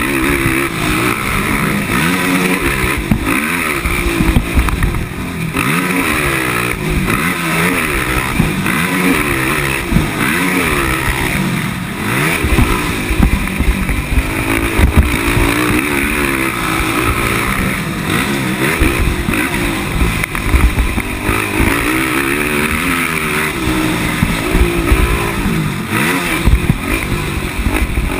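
Race quad's engine revving up and falling away over and over as it accelerates, shifts and backs off through the corners. It is heard from the rider's helmet, with steady wind rush and frequent knocks from the bumps.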